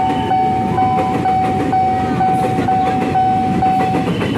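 KRL commuter electric train running past a level crossing, its wheels rumbling and clacking over the rail joints. Over it the crossing's warning bell rings one steady tone in pulses about twice a second, which cuts off about four seconds in.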